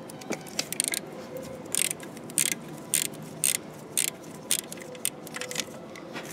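Ratchet wrench clicking in short bursts, about two a second, as it is swung back and forth to undo a bolt.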